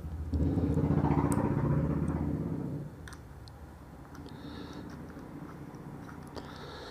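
A small electric motor runs with a steady buzz for about two and a half seconds, then stops, leaving a few faint clicks of small parts being handled.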